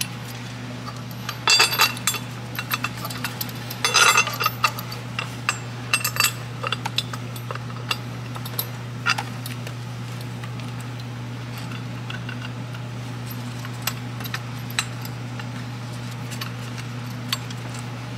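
Metal clinking and rattling as steel bolts are fitted by hand into an engine support bracket, in bunches about a second and a half and four seconds in, then scattered light clinks. A steady low hum runs underneath.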